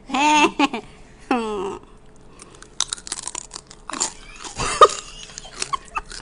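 A woman's short laughing vocal sounds, then crunchy food bitten and chewed close to the microphone: a quick run of sharp crunches, loudest a little under five seconds in.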